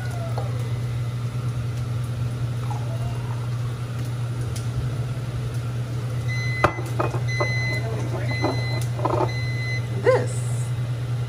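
A steady low hum, with an electronic beep sounding four times at an even pace in the second half. A few light clicks or clinks fall around the beeps.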